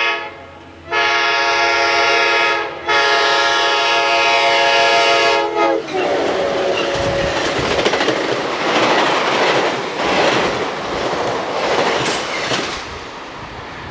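Amtrak F40PH diesel locomotives' K5LA multi-chime air horn blowing two long blasts after a short break. The chord drops in pitch as the locomotives pass about six seconds in, then gives way to the loud rumble and clatter of the passing train's wheels on the rails.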